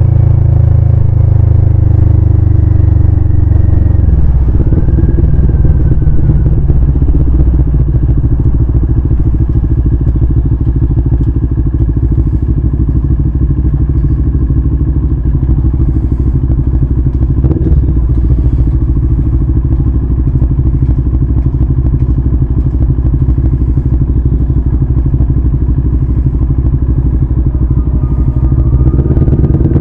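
CFMoto 400NK parallel-twin engine settling from a steady run down to idle about four seconds in, then idling with an even low pulse. Near the end the revs rise again.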